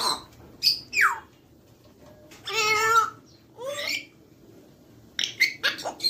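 African grey parrots calling in a string of separate whistles and squawks. A falling whistle comes about a second in, a longer wavering call around the middle and a rising call after it, then a quick run of four or five sharp calls near the end.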